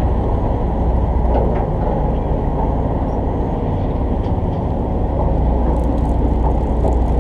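Fishing party boat's engine running steadily, a loud low drone with a few faint clicks over it.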